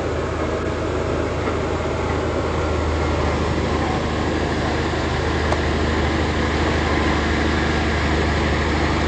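A steady mechanical rumble with a low hum, like a running engine or machinery, growing slightly louder.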